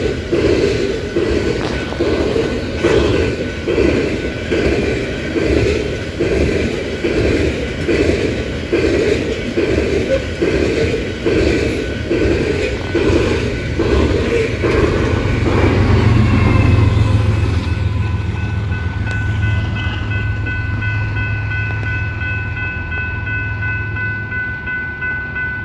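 Freight train of tank cars rolling past, its wheels clacking over rail joints a little more than once a second. After about sixteen seconds the clacking fades, and a steady low rumble and a steady high chord of several tones take over as another train approaches the crossing.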